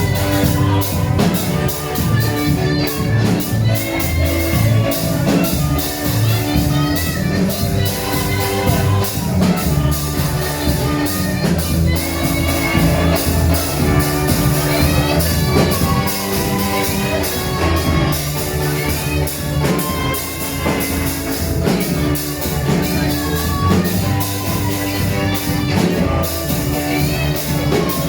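Live church praise music from a band with a drum kit keeping a steady beat under a bass line, with voices singing.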